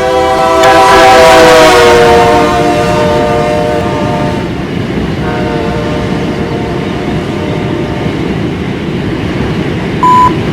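Diesel locomotive air horn sounding a multi-note chord whose pitch drops about a second in as the locomotive passes, fading out after about four seconds. The passing train's wheels and cars rumble on steadily. Near the end comes a short beep, the radio tone that opens the defect detector's announcement.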